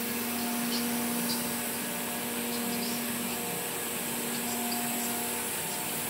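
Esprit Lightning CNC plasma cutting table running: a steady hiss with a steady hum under it and faint scattered ticks.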